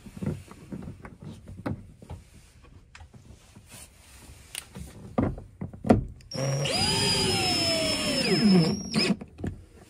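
A few clicks and knocks as a metal bracket is worked into place, then a DeWalt cordless drill/driver runs for about two and a half seconds driving a bolt back into the headliner mount. Its motor whine is steady and then drops in pitch just before it stops.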